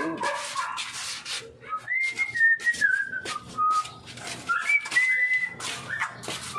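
A person whistling a tune: one clear whistled line moving between held notes, starting about two seconds in. Over it come light clanks and knocks as an aluminium window frame is handled.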